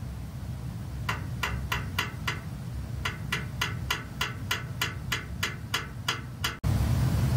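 Short metallic clicks with a brief ring, made by a hand tool working on the cooling tower fan's hub. A few come irregularly at first, then a steady run of about three a second. Near the end they cut off suddenly to a louder, steady low rumble.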